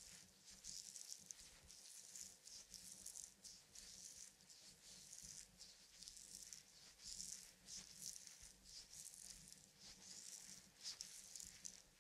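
Hands massaging a bare foot: faint, repeated swishing strokes of skin rubbing on skin, one or two a second, in an irregular rhythm.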